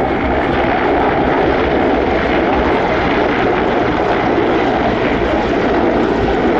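Two military helicopters, a Mil Mi-17-family transport and a Mil Mi-24 attack helicopter, flying past with a loud, steady rush of turbine and rotor noise.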